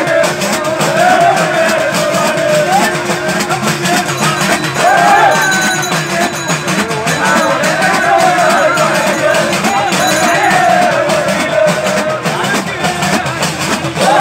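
Parai frame drums beaten loudly together in a constant dense rhythm, with a packed crowd shouting and calling over them.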